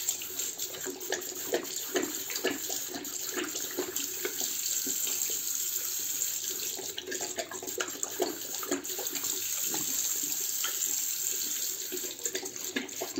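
Bidet tap running in a low-pressure thin stream into the bowl, while a large dog laps at the stream with its tongue, making quick, irregular slurping splashes, about two or three a second, over the steady trickle.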